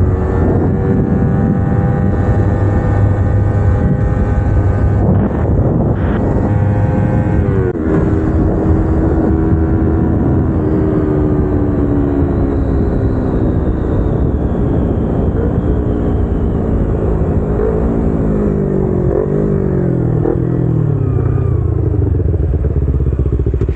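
Kawasaki Ninja 250R's parallel-twin engine through new aftermarket headers and exhaust, running hard under way. The pitch drops sharply once about eight seconds in, as at a gear change, then winds down slowly over the second half with several short rises and falls near the end.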